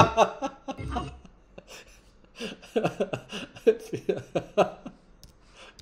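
A person's voice in short, broken bursts of indistinct talk or chuckling, starting about two and a half seconds in, after a music sting stops right at the start.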